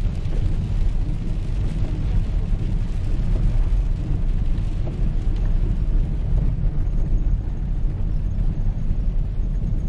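Steady low rumble of road and engine noise inside a moving car's cabin, driving on a wet road in the rain.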